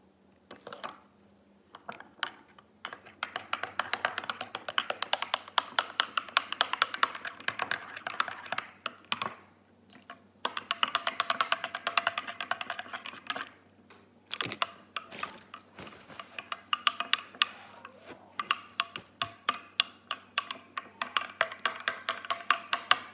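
Metal spoon stirring hot chocolate in a ceramic mug, clinking rapidly against the sides in several spells with short pauses.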